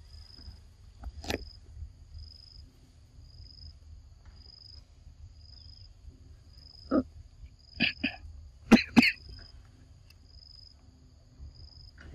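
A few short, sharp macaque calls: one about a second in, then four in quick succession from about seven to nine seconds in, the last two the loudest. Under them an insect chirps faintly in a steady high pulse a little faster than once a second.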